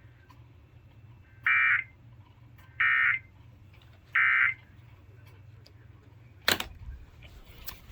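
Weather radio sounding the three Emergency Alert System end-of-message data bursts: three short buzzing bursts about 1.3 seconds apart that mark the end of the warning broadcast. A sharp knock follows near the end.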